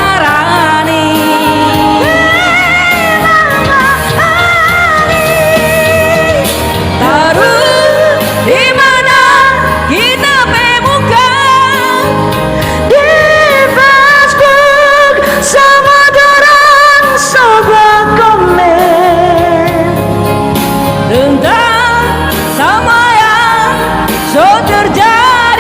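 A woman singing a slow pop song live over music accompaniment, holding long notes with a wide vibrato.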